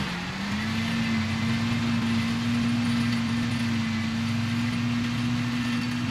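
Tractor engine running steadily while pulling a towable flail mower. Its note dips briefly just after the start, then settles and holds.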